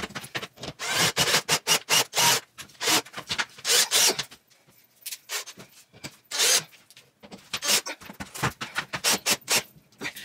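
Irregular rubbing and scraping strokes, several a second with a few short pauses.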